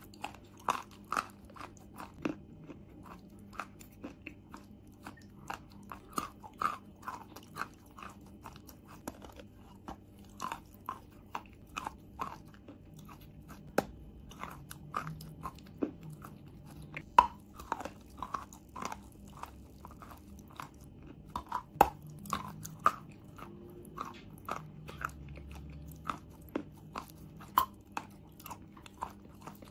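Chalk being bitten and chewed: a continuous run of sharp, irregular crunches, about one to two a second, as a chunk of chalk is bitten off and ground between the teeth.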